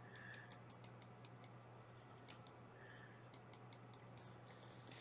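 Faint, sharp clicks in quick runs of about five a second, with short gaps between the runs, over near silence.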